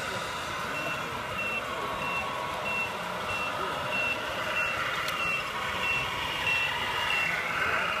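Reversing beeper on an RC construction model: a single high beep repeated evenly about every two-thirds of a second, about eleven in all, starting about a second in and stopping near the end, over steady background noise.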